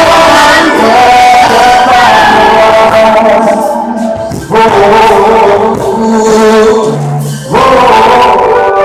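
Live pop band music played loud through a PA speaker and recorded close to it, with a sung or played melody held over the band. The music drops briefly twice, about four and a half and seven and a half seconds in.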